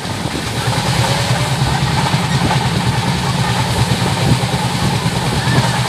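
Steady running noise of a moving passenger train heard from inside the coach at an open window: a continuous low rumble.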